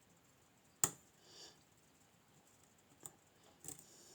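Sharp metallic clicks of lock picks and a tension tool working inside a Nemef NF2 pin-tumbler lock: one louder click about a second in, then two fainter ones near the end.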